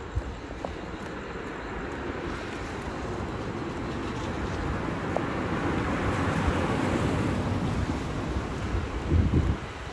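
Road traffic: a vehicle's engine and tyre noise on a wet street, growing gradually louder as it approaches. A few low thumps come near the end.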